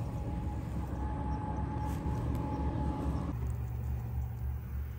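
Steady low rumble of road traffic, with a faint steady whine for the first three seconds or so.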